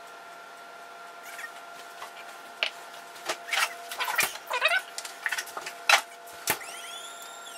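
Rancilio Silvia espresso machine heating its boiler at full power up to steam temperature: a faint steady hum with irregular ticks and crackles, and a thin whistling tone near the end.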